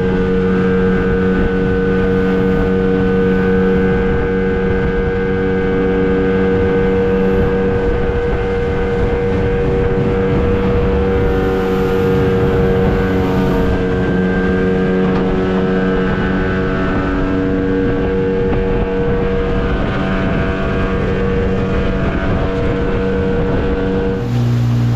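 Outboard motor on a small aluminium boat running at a steady cruising speed, a constant engine note under the rush of the hull through the water. Near the end a lower engine note abruptly takes over.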